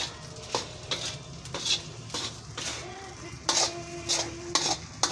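A spatula scraping and clanking against a frying pan as fried rice is stirred and tossed, in quick strokes about twice a second. The stirring is continuous to keep the rice from sticking after oyster sauce has been added.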